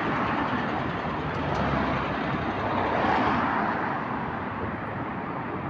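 Steady engine and road noise of a moving double-decker bus.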